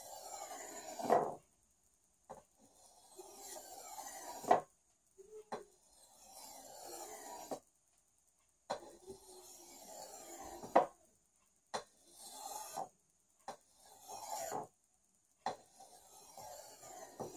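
A steel cleaver blade scraping in long strokes along a fine-grit composite oil stone while its edge is honed. There are about six separate strokes, each swelling to a sharp scrape at its end, with brief pauses and light taps as the blade is set back on the stone.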